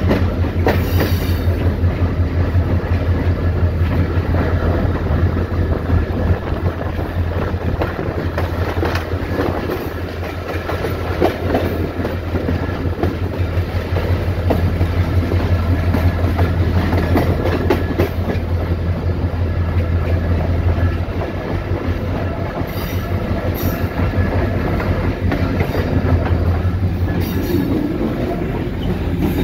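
EMD GT26CW diesel locomotive, its 16-cylinder two-stroke engine working under load as it accelerates a passenger train away, with the wheels rolling over the track. The deep steady engine drone eases about two-thirds of the way through, then builds again near the end.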